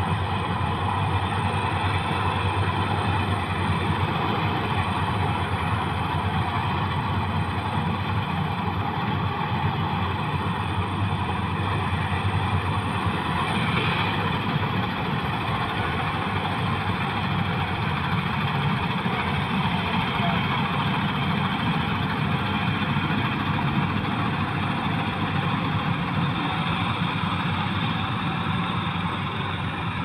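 Tracked rice combine harvester running steadily as it cuts through a standing rice crop, its engine and machinery giving an unbroken hum.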